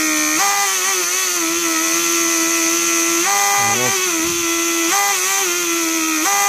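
Rebuilt Mercedes S-class central-locking vacuum/pressure pump running on bench power, its new electric motor and vanes spinning freely. It gives a steady high whine whose pitch steps slightly up and down a few times.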